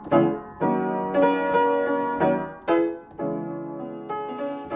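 Background piano music, its notes and chords struck about every half second and left to ring and fade.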